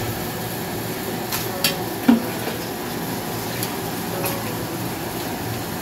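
Metal tongs clacking on blue crabs lifted from a plastic cooler, with crabs knocking into a steel wok: a handful of sharp clicks and knocks, the loudest about two seconds in. A steady hum runs underneath.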